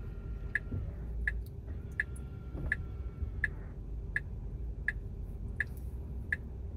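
Tesla Model X turn-signal indicator ticking steadily, about three ticks every two seconds, signalling a turn, over the low hum of the cabin.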